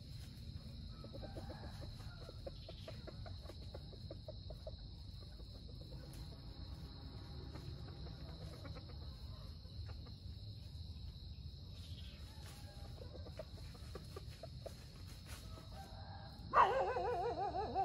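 Wild red junglefowl rooster giving a short, loud crow near the end, after soft intermittent clucking. A steady high insect drone runs underneath.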